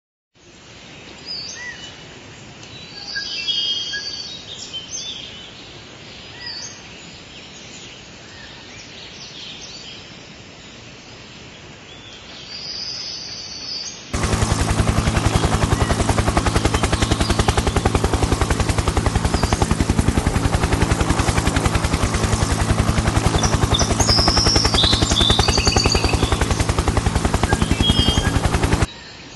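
Jungle ambience with birds chirping now and then, then about halfway through a loud helicopter rotor starts suddenly, chopping in fast, even pulses at a steady level over a low engine hum, until it cuts off just before the end.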